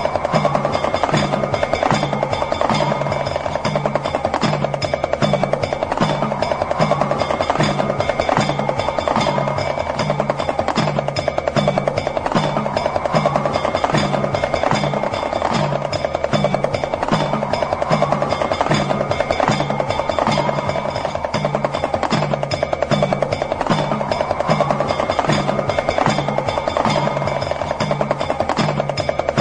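Damru, the small hourglass drum, played as a fast continuous ticking rattle over a low drum beat about once a second. Steady ringing tones and a rising-and-falling tone that recurs every four seconds or so run under it.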